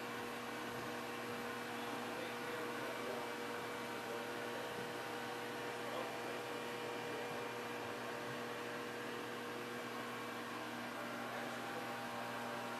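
Steady machinery hum: an even hiss with several held tones layered in, unchanging.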